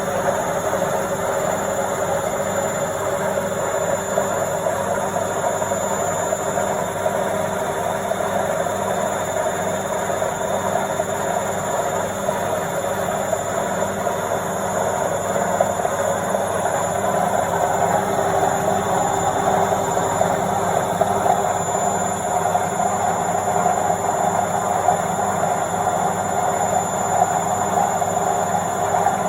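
Washing machine on its spin cycle, heard close up: a steady motor hum and drum drone with a rushing whir, growing a little louder in the second half.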